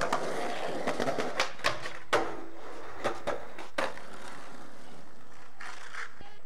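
Skateboard wheels rolling over concrete and rough asphalt, with a string of sharp clacks from the board in the first four seconds, the loudest about two seconds in. After that the rolling goes on more quietly.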